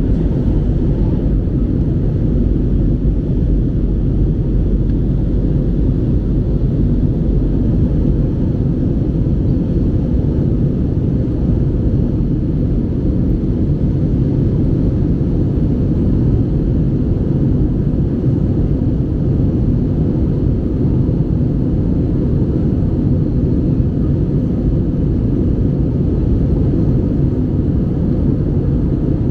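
Steady, unbroken low rumble of engine and air noise inside an airliner cabin.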